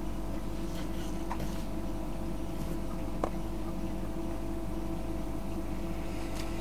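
A steady low hum with a few faint, light clicks.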